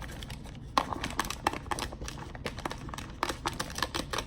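Chopped onion tipped into a plastic freezer bag of vegetables: irregular light clicks and plastic crinkling, starting about a second in.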